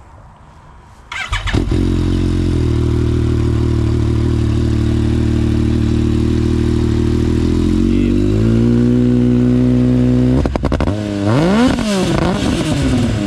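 Yamaha Viper snowmobile's 1049 cc three-cylinder four-stroke engine, swapped into a 2016 Yamaha YXZ 1000R side-by-side, started up about a second in and settling into a steady idle. The idle rises a little about two-thirds of the way through, then near the end quick throttle blips send the revs up and back down.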